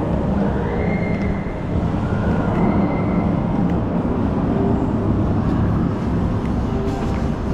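Shopping-mall ambience: a steady low rumble, with faint higher sounds coming and going.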